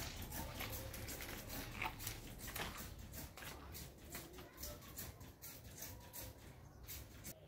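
Irregular clicks and taps, a few a second, over a low rumble: steps on wet concrete and the phone rubbing in the hand of someone walking while filming.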